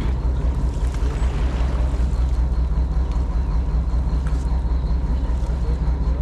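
Engine running steadily with a deep, even rumble.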